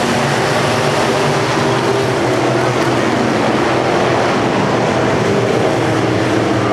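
Pack of dirt-track race cars running at speed on the oval, several engines overlapping in a loud, steady drone.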